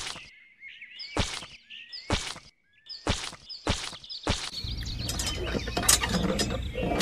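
Small birds chirping, with about six short sharp scrapes, roughly half a second to a second apart, as fingers work seeds into loose sand. About two thirds of the way through, a low, even rushing noise sets in.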